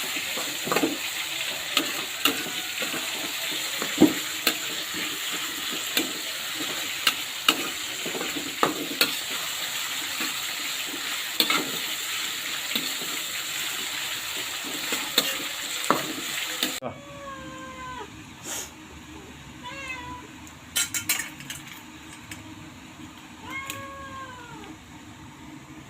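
Fish frying in hot oil: a steady sizzle with frequent spitting pops. It cuts off abruptly about seventeen seconds in, and a cat meows a few times after that.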